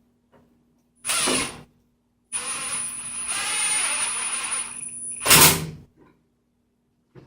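Cordless drill or driver running screws in: a short burst of the motor about a second in, then a run of about three seconds with a steady high whine, and a short loud burst near the end.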